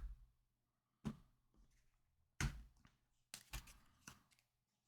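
Tarot cards being handled and laid down on a table: a few faint taps and soft slaps, one about a second in, another at about two and a half seconds, and a small cluster near the end.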